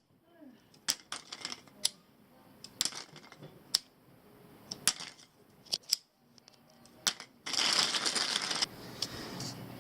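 Plastic Bic lighters clicking and clacking against one another as they are handled in a pile, a sharp click every second or so, then about a second of dense rattling as a handful of them shifts and slides, about seven and a half seconds in.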